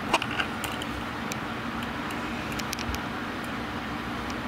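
Steady background hum and hiss, with a few faint, sharp ticks scattered through it.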